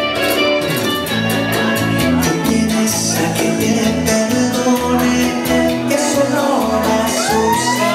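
Salsa music playing loud, with a steady percussion beat, bass and a singing voice.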